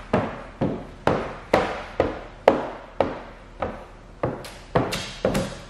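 A steady run of sharp knocks, about two a second, each ringing away briefly.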